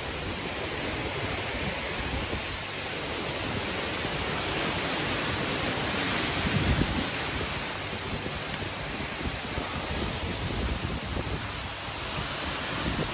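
Steady rush of wind, with gusts buffeting the microphone, strongest about halfway through.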